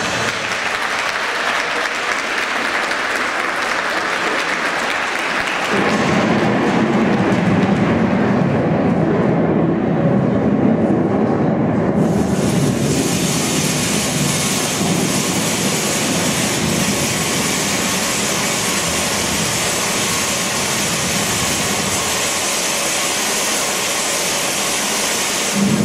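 Audience applauding in a large hall as a dance number ends. About twelve seconds in, the sound becomes a steadier, brighter rushing noise.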